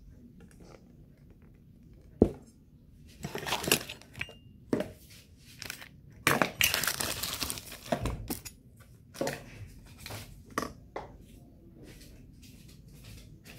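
Kitchen handling sounds: a sharp knock about two seconds in, then stretches of crinkling and scraping and a few more knocks as a plastic bowl and an aluminium pot are moved about, quieter near the end.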